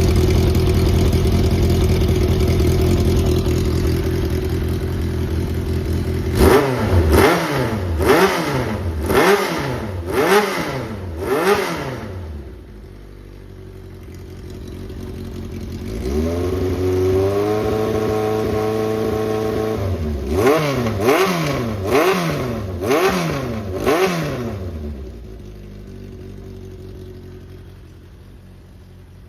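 Honda CB750F air-cooled inline-four engine idling, then blipped through about six quick revs, dropping back to idle, held at raised revs for about four seconds, blipped about five more times, and settling to a quieter idle. The seller presents it as running with no abnormal noise.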